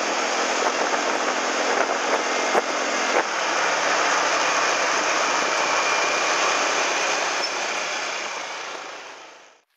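Riding a Yamaha motorbike: a steady rush of wind and road noise with the engine running underneath, fading out near the end.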